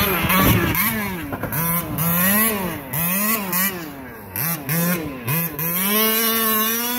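Radio-controlled car's motor revving up and down in quick bursts as it is driven: its pitch repeatedly rises and falls, then holds high and steady for about a second near the end.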